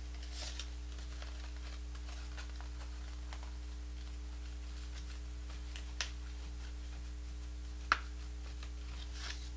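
Faint rustling and light ticking of paper petals being handled and glued onto a paper rose, over a steady low hum, with two sharper clicks about six and eight seconds in.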